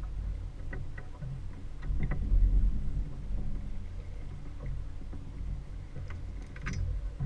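Outboard motor idling with a steady low rumble that swells briefly about two seconds in, with a few light clicks and knocks on the boat.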